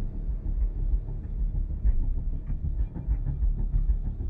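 Film score music: a deep, rumbling bass passage with an uneven throb and little above it.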